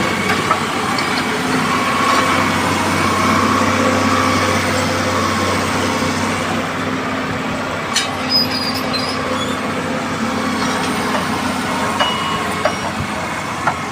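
Heavy machinery running steadily with a low engine hum, and a few sharp metallic clicks about eight seconds in.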